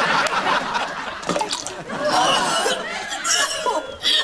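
Audience laughter, densest in the first second and then thinning out.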